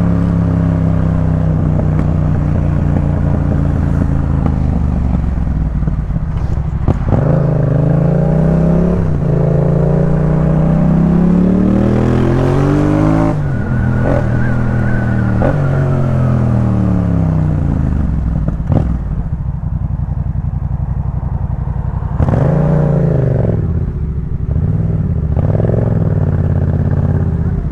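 Yamaha MT-07's parallel-twin engine through a full Jeskap K4 exhaust, heard from the moving bike. The revs climb in steps through the gears in the first half, fall away as the rider rolls off, then rise again briefly near the end.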